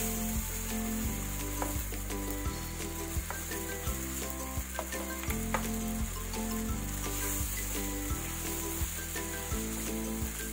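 Onion-tomato masala paste sizzling in hot oil in a non-stick pan while a spatula stirs it, with scattered light clicks of the spatula against the pan. The masala is being fried down (bhuna) until the oil separates.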